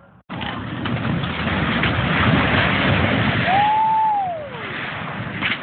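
Farm silo collapsing: a loud, sustained crash and rumble of falling masonry starting suddenly. A single tone rises, holds and slides down about three and a half seconds in.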